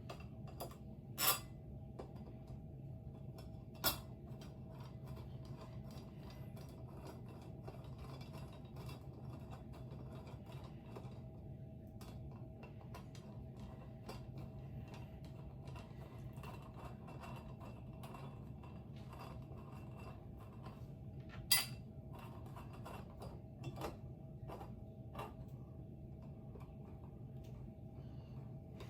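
Sharp clinks and knocks of metal fan parts and hardware being handled during a ceiling fan installation, three louder ones and a few small ones, over a steady low hum.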